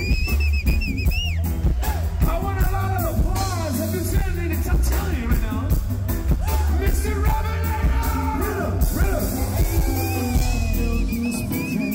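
Live reggae band playing, with a singer over heavy, steady bass and drums.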